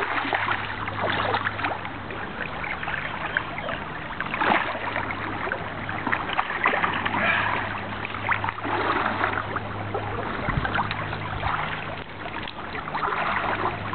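Steelhead thrashing and splashing in shallow creek water as it is played to hand and landed, with the splashes of wading legs and the stream running underneath. The splashes come irregularly, some sharp, over a steady wash of water.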